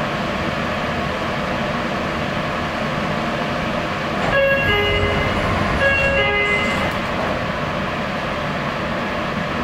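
A Meitetsu (Nagoya Railroad) electric train running with a steady rumble, sounding its horn twice, about four and six seconds in, each blast a short higher note falling to a lower one.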